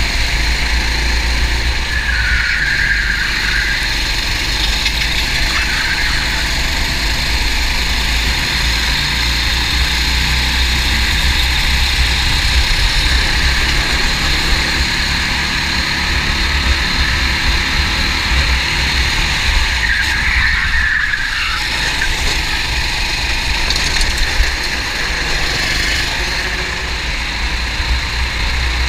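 Racing kart's engine running at speed, heard onboard with steady road and vibration noise. Two short higher squeals come through, about two seconds in and again about twenty seconds in.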